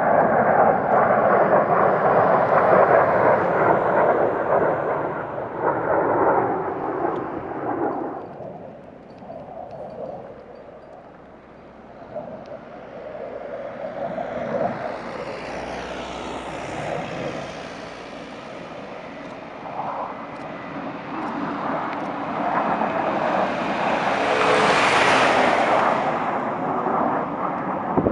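Jet engines of a three-ship formation, an F-22 Raptor, an F-35A and an F-86 Sabre, flying past. The roar is loud at first and fades to its quietest about eleven seconds in. It then builds again to a peak with a rising hiss about twenty-five seconds in, and eases off near the end.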